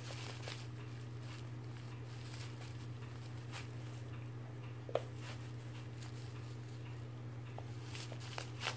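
A cat playing with a plush toy filled with valerian root and spelt: faint scattered rustles and soft taps as it paws and bites the toy, with one sharper click about five seconds in, over a steady low hum.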